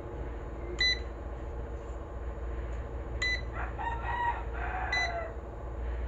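ANENG ST193 clamp meter giving short electronic beeps, three in all, each time a button is pressed while it is stepped to its continuity buzzer setting. Between the second and third beeps a rooster crows in the background.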